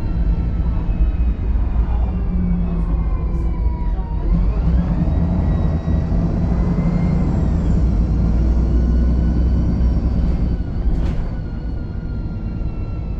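VDL SB200 Wright Pulsar 2 single-deck bus running, a heavy low engine rumble under several whining tones. About four seconds in the whines climb sharply in pitch as the bus accelerates, then ease slowly downward.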